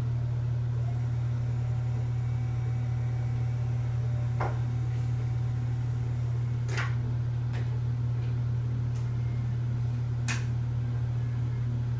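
Steady low machine hum of a radiation therapy treatment room's equipment, with a handful of short sharp clicks and taps, about four and a half, seven, seven and a half, nine and ten and a half seconds in.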